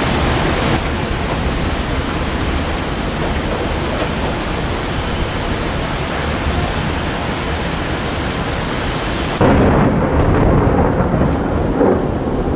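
Thunderstorm: steady heavy rain with rumbling thunder. About nine seconds in the sound suddenly turns louder and deeper.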